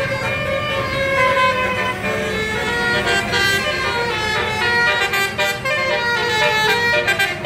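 Telolet bus horn, a multi-note air horn playing a tune: loud held notes that step from pitch to pitch, quicker from about three seconds in.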